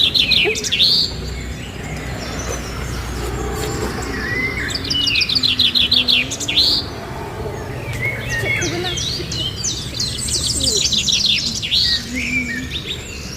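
Small birds chirping: bursts of rapid, high-pitched trilled notes come every few seconds over a steady low background rumble.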